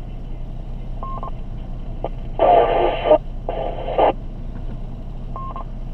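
Amateur-radio repeater audio over a steady low hum: a short beep about a second in, then a weak transmission that comes through as two bursts of static about two and a half seconds in, and another short beep near the end. The static is a station that did not quite make the repeater.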